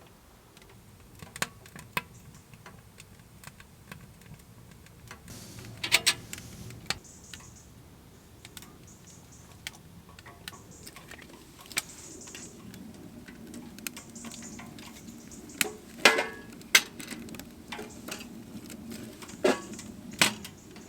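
Freshly lit kindling crackling and popping in a wood-burning tent stove, with irregular sharp clicks throughout. A low rushing sound builds underneath from about five seconds in, and a few louder knocks come about six seconds in and again around sixteen seconds.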